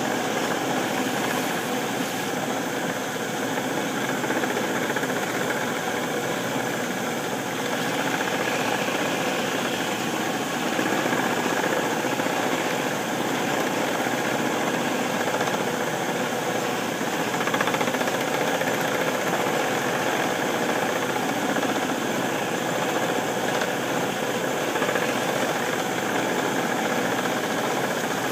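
Small metal lathe running steadily while 80-grit sandpaper is held against the spinning spoon bit in its chuck: an even, unbroken machine noise with no pauses.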